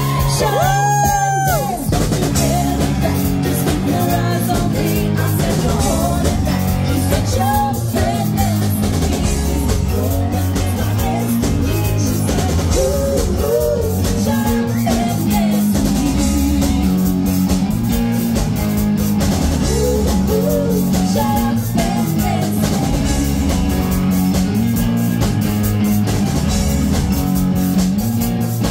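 Live band playing, with drum kit, bass guitar, electric guitar and keyboards, and women singing.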